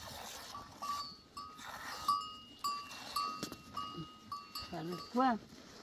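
Goat being hand-milked into a metal bowl: squirts of milk hit the bowl and make short metallic pings, about two a second. A goat bleats once near the end.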